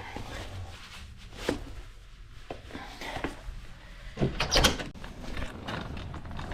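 Irregular knocks and clatter of objects being handled, loudest in a short cluster about four and a half seconds in.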